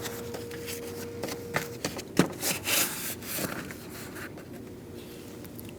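Hands pressing and rubbing the door's plastic water shield back onto its adhesive: rustling and rubbing with a few light clicks and taps.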